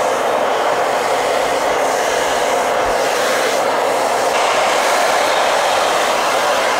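Blow dryer running steadily, a constant whoosh of air while a cat's coat is dried.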